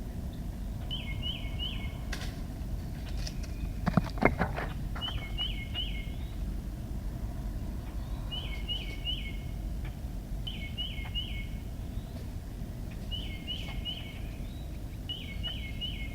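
A steady low rumble with a bird repeating a short three-note chirping call about every two seconds. A brief cluster of sharp knocks or clicks about four seconds in is the loudest sound.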